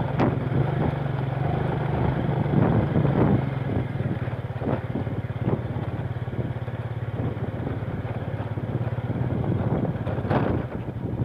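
Motorcycle engine running steadily at low speed, with scattered knocks and rattles as the bike rides over a rough, potholed dirt road.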